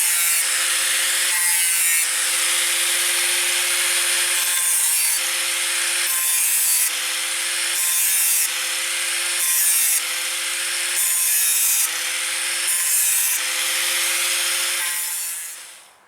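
Small electric power tool sanding or grinding. The motor hums steadily while the tool is worked against the piece in repeated strokes of about one to two seconds, with a loud scraping, rasping noise. It winds down and stops near the end.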